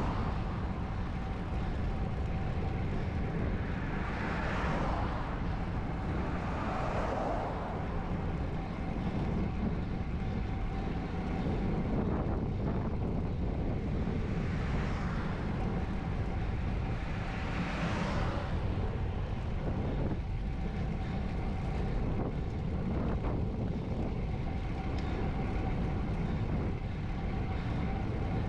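Wind rushing over a GoPro HERO9's microphone on a moving road bike, with tyre noise from the road. Several vehicles pass, each swelling and fading.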